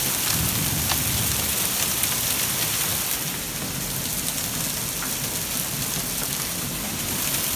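Steady rush of heavy rain and a flood-swollen creek overflowing its banks, with scattered drop ticks.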